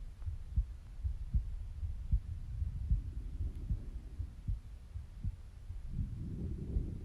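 Breath sounds picked up at the skin of the left side of the neck during quiet, normal breathing at rest. There is a low breathy rush about three seconds in and a stronger one near the end, over steady heartbeat thumps about every 0.8 seconds.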